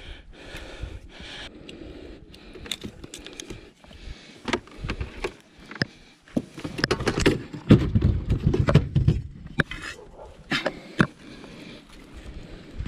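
Small clicks, ticks and rattles of hands handling fishing line and a hard-bodied lure with its hooks, with close rubbing and low bumps near the middle.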